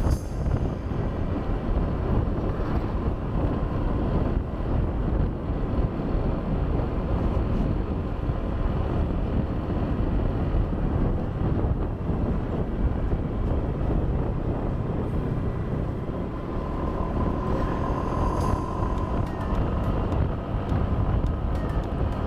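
Steady rumble of wind on the microphone mixed with the drone of a riding scooter's engine and tyres on the road. A faint steady whine comes in for a couple of seconds about three-quarters of the way through.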